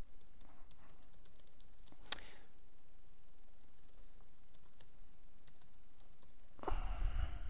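Typing on a computer keyboard: a run of quick, irregular key clicks, one of them louder about two seconds in. A louder, fuller noise comes near the end.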